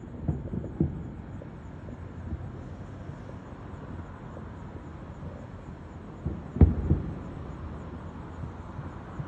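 Aerial firework shells bursting as low, rumbling booms: two about a second in and a louder cluster of several about two-thirds of the way through, over a steady outdoor background hum.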